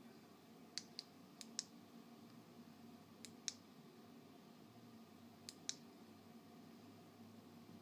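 Small plastic button or switch clicking in four quick press-and-release pairs, each pair two sharp clicks a fraction of a second apart, as the LED lights are switched between modes and off. A faint steady hum sits underneath.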